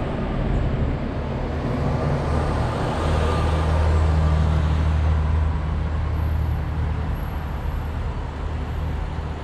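Steady low mechanical hum of a moving cable car, swelling for a couple of seconds in the middle and then easing.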